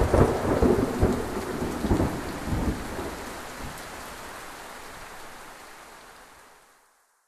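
Recorded thunderstorm sound effect: several low rumbles of thunder over the first three seconds above a steady hiss of rain, which then fades out to silence near the end.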